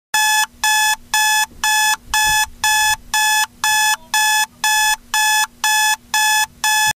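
Sony digital clock radio's alarm buzzer going off: loud electronic beeps at a steady two per second, fourteen in a row, cutting off suddenly near the end as the alarm is stopped.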